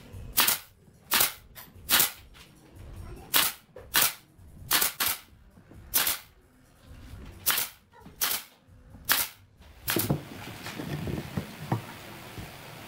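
Pneumatic brad nailer firing nails into pine trim boards: about a dozen sharp snaps, roughly one every half second to second and a half. It stops about ten seconds in, leaving a few quieter light knocks.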